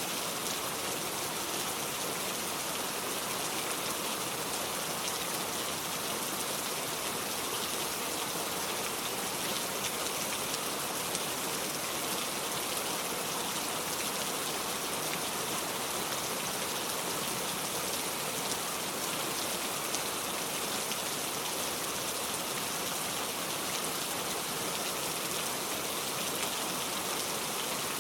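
Steady rain falling, a continuous even hiss of many fine drops on a surface, with no thunder or breaks.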